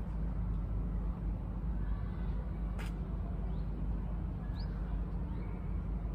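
Outdoor city-park ambience: a steady low rumble of distant traffic, a few short high bird chirps, and one sharp click about three seconds in.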